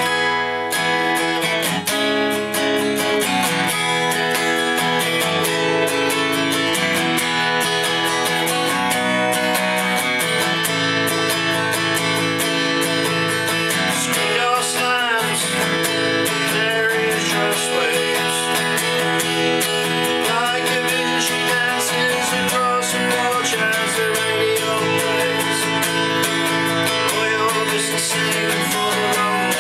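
Jumbo flat-top acoustic guitar strummed in steady chords, starting suddenly and changing chords as it goes.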